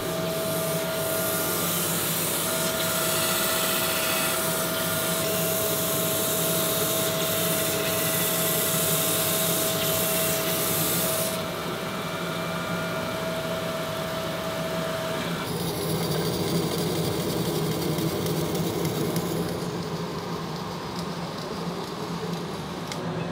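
Crankshaft grinding machine running, its grinding wheel hissing steadily against a crankshaft main bearing journal on a final left-right pass of the table, taken so the journal does not end up barrel-shaped. About halfway through the high hiss stops, leaving the machine's steady running hum.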